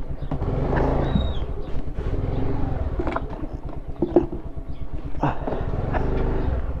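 Honda Grazia scooter's 125 cc single-cylinder engine running at low speed while the scooter is turned around. The throttle opens and eases off so the engine note swells about a second in and again near the end, with a few short knocks along the way.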